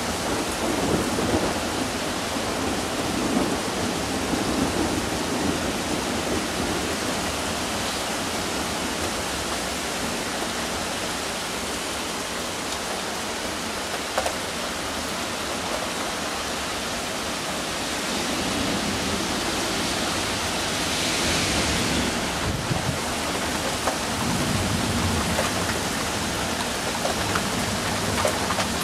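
Thunderstorm: steady heavy rain with rolling thunder, rumbling in the first few seconds and again in the second half.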